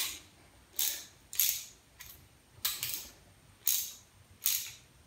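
Five short metallic clicking rattles, spaced roughly a second apart, from a wrench and socket working the adjusting screw of a Ford flathead V8 valve lifter.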